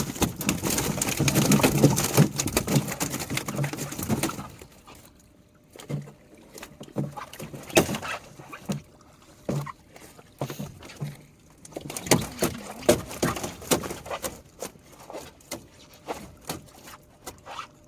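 Water splashing and sloshing loudly for about four seconds, then scattered shorter splashes and knocks.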